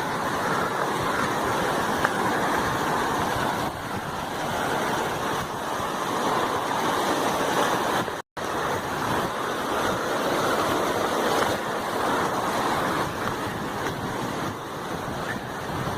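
Steady rushing of running mountain water, an even hiss centred in the mid range. It cuts out for a split second about eight seconds in.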